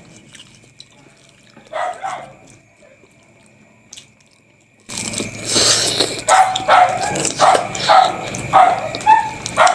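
A dog barking: one bark about two seconds in, then a run of repeated barks about every half second from about five seconds in.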